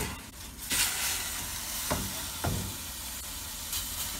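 Beef roast sizzling in hot oil in a stainless steel pot. The sizzle flares up loudly about a second in, as the roast is turned onto its raw side to brown. Two short knocks follow, from the tongs against the pot.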